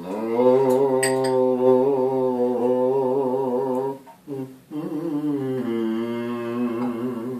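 A man humming a slow melody with a light vibrato, in two long held phrases with a brief breath between them about four seconds in.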